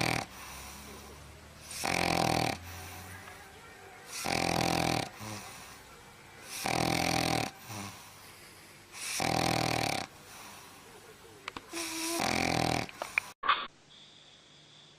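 Steady snoring in sleep: five loud snores, one about every two and a half seconds, with quieter breathing between them. Near the end the snoring stops abruptly with a click.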